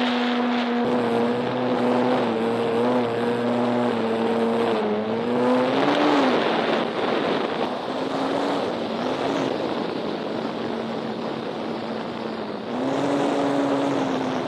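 Radio-controlled model airplane's engine and propeller droning in flight, the pitch wavering, rising and swelling about six seconds in, then fading and coming back strongly near the end as the plane passes. Wind noise on the microphone lies beneath it.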